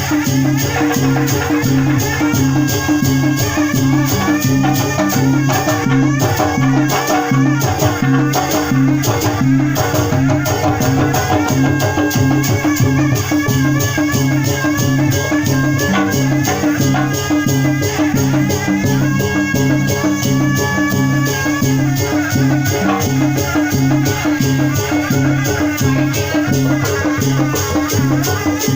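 Sundanese bangreng ensemble playing: kendang and frame drums beat a steady repeating pattern with constant rattling percussion, under a wavering melodic line.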